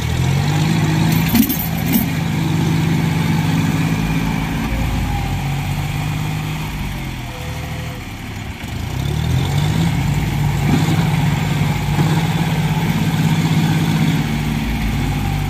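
Diesel engines of John Deere 5045D tractors working hard under load as one tractor tries to tow the other, stuck, out of deep mud. The revs rise and hold for several seconds, ease off about halfway through, then rise and hold again before dropping near the end.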